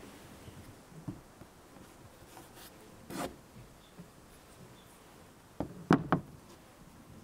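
Handling noises from an old bicycle frame and crankset being moved on a wooden work surface: scattered light rubs and knocks, then three sharp knocks in quick succession near the end, the loudest.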